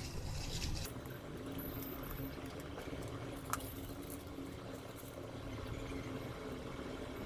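Faint rustling and handling of crumpled newspaper balls being pressed onto a plastic bottle, over a steady low hum, with one small click about three and a half seconds in.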